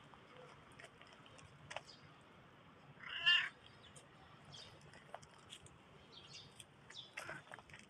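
A black cat meowing once, a short call about three seconds in, with faint small clicks around it.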